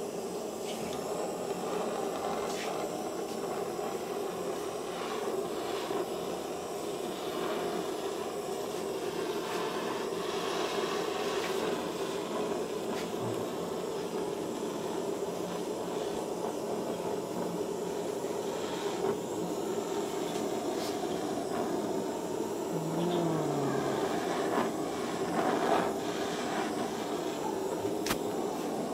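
Handheld gas torch burning with a steady hiss as its flame is played over the wood to darken the burned image.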